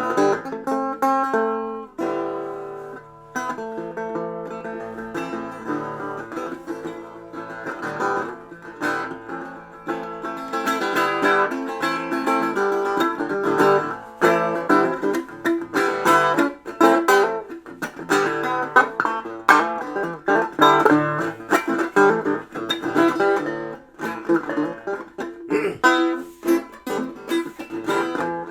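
Instrumental music on a plucked string instrument with a guitar or banjo sound, many quickly picked notes and chords played continuously.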